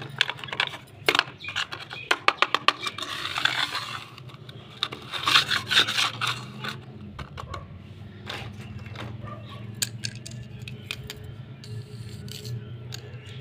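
Small plastic toys handled and set down on a stone floor: a run of sharp clicks, clatter and scraping over the first six or seven seconds, then only occasional light clicks. A steady low hum runs underneath.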